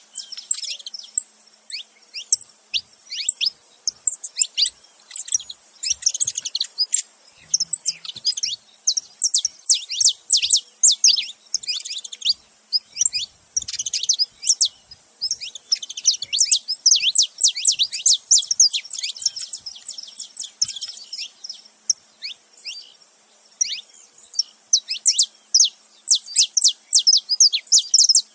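Saffron finches, a male and a female, chirping together in rapid bouts of quick, high, downward-sweeping notes with short pauses between bouts.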